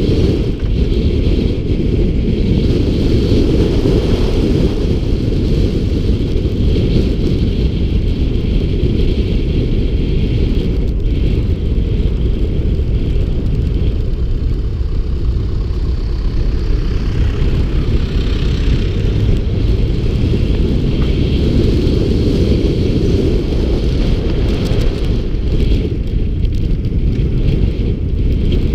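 Heavy wind buffeting on a hood-mounted action camera's microphone as a Toyota Tundra pickup drives along a dirt road, a steady low rumble with the truck's running underneath.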